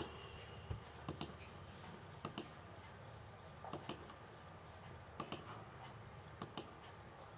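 Computer mouse button clicking in close pairs about every second and a half, faint, as lines are selected one after another.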